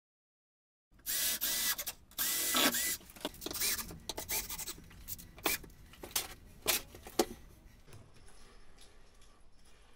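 A cordless drill-driver runs in two short bursts, about a second and two seconds in, driving screws to fix a timber door lining. A string of sharp clicks and knocks from the tool and the frame follows, the sharpest a little after seven seconds.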